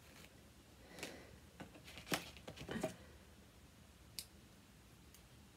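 Quiet handling sounds of yarn and a knitted toy being worked by hand: a few soft clicks and rustles, loudest about two seconds in, and one sharp click about four seconds in.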